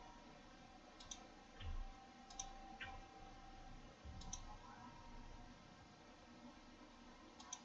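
Faint computer mouse clicks, about half a dozen spread unevenly, with a few soft low thuds between them, over quiet room tone.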